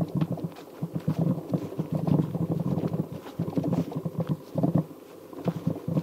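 Bicycle riding over a rough grassy field: a rapid, irregular clatter of knocks and rattles from the bike and the camera mounted on it, over a low rumble.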